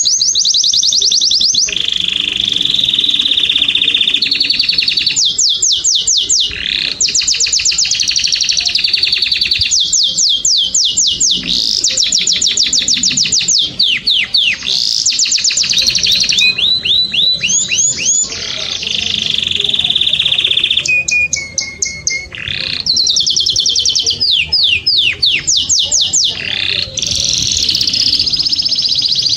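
Canary singing continuously and loudly: fast trills of repeated notes sweeping down from high pitch, alternating with steady high rolls, and a lower run of notes about 21 to 22 seconds in.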